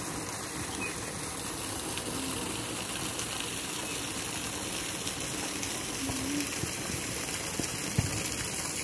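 Steady rush of running water, an even noise with no pauses.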